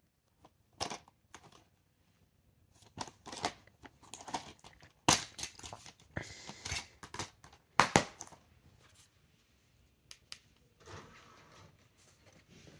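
A plastic DVD case being handled and opened: a run of sharp plastic clicks and snaps with rustling in between, the loudest snaps about five and eight seconds in.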